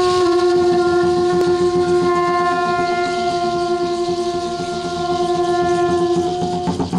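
Conch shell trumpet blown in one long, steady note that stops near the end.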